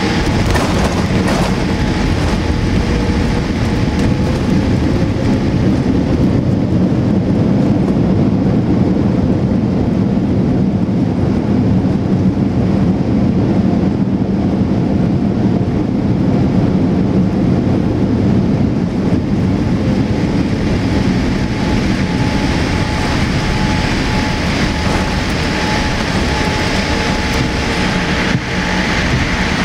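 Cabin noise of a Boeing 787-8 landing: a sharp jolt about a second in as it touches down, then a steady loud rumble of engines and wheels on the runway that swells over the next several seconds and eases after about twenty seconds as the aircraft slows.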